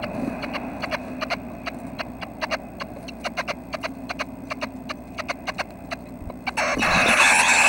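Red-breasted nuthatch nestlings in the nest cavity, with irregular sharp taps and clicks as they move and peck. About six and a half seconds in, a thump is followed by a sudden loud chorus of begging calls, the sign of a parent arriving at the entrance with food.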